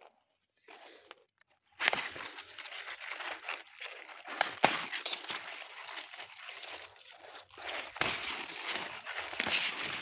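Leafy garden plants rustling and crunching as a hand grabs and pulls at them close to the microphone, with a few sharper clicks. The rustling starts about two seconds in, after near silence.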